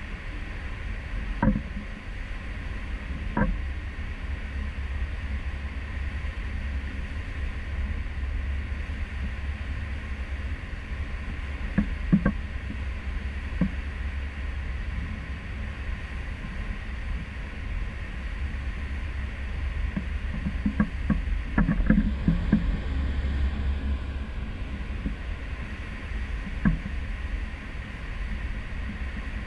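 Steady low rumble of a cruise ship under way at sea, heard from its stern balcony: a deep drone with the rush of wind and wake over it. A few sharp knocks break in now and then, several close together about two-thirds of the way through.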